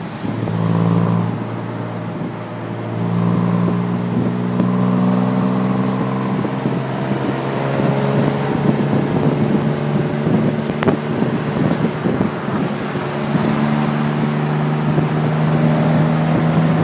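Tuk tuk's small engine running under way, its steady note dipping and picking up again, over road and wind noise. A stretch of rattling from the vehicle's body comes in midway, with one sharp click.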